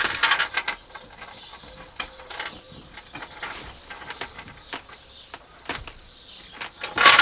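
Scattered clicks, knocks and light rattles of small hardware and parts being handled during van-conversion work.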